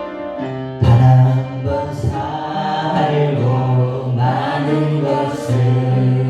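Worship music: the keyboard introduction to a praise song, with chords over long held low bass notes.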